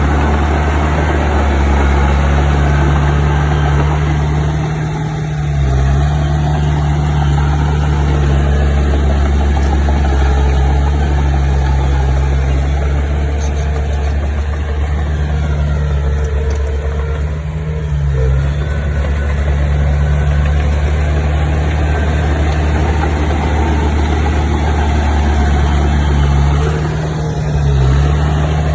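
Heavy diesel engine of construction machinery running steadily at a low, even speed. The engine note dips briefly three times.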